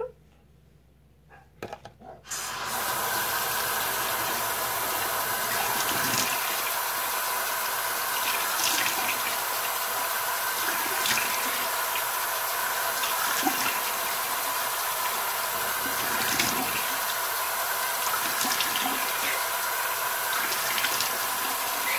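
Bathroom sink tap turned on about two and a half seconds in and left running steadily, with a splash every couple of seconds as water is scooped up to rinse the face.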